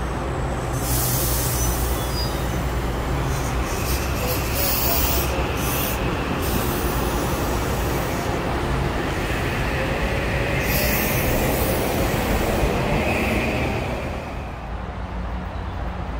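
Metro-North M8 electric multiple-unit commuter train rolling past close by: a steady rumble of wheels on rail with hissing surges and faint wheel squeal, and a faint rising whine in the middle. The sound drops to a quieter background near the end.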